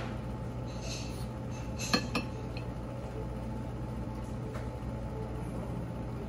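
Light clinks of tableware at a dining table: a brief clatter about a second in, then two sharp clicks close together about two seconds in. A steady low room hum runs underneath.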